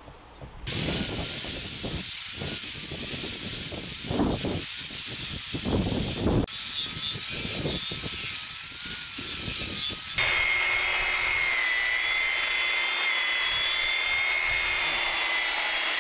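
Corded handheld drum sander with an abrasive drum scouring rust and scale off a rusty steel truck frame rail: a motor whine over a rough scraping grind. About ten seconds in, the scraping mostly drops away, leaving a steady whine from the spinning drum.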